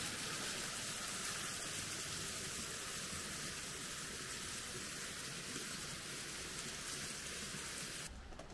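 Small waterfall splashing down a rock face onto stones: a steady rushing hiss of falling water, cut off suddenly near the end.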